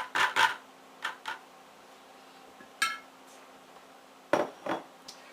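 Containers and utensils clinking and knocking as they are handled and set down: a series of short separate knocks, mostly in pairs, one near the middle ringing briefly like glass or metal.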